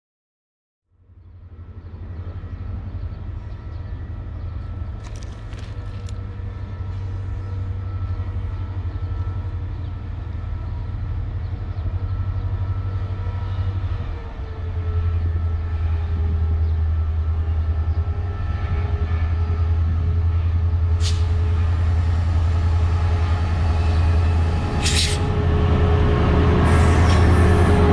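CSR SDA3 (U20) diesel locomotive running with a low, steady engine hum and some higher whining tones as it hauls a train of tank wagons, growing louder as it draws close and passes. A few short sharp noises come near the end.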